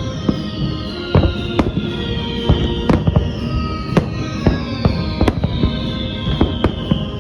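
Fireworks bursting in quick succession, sharp bangs two or three a second, over the show's music, with repeated falling whistle-like tones.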